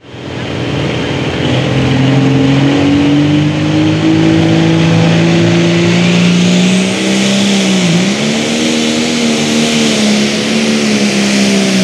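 Turbocharged diesel engine of a Limited Pro Stock pulling tractor revving at the starting line, its pitch climbing steadily. About eight seconds in the pitch dips briefly as the engine takes the load of the sled, then holds steady while the tractor pulls.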